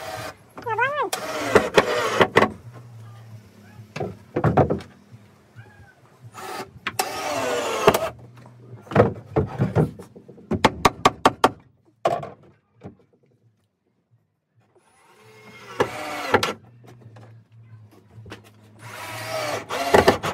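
People talking in stretches, over a steady low hum, with a quick run of sharp knocks about halfway through.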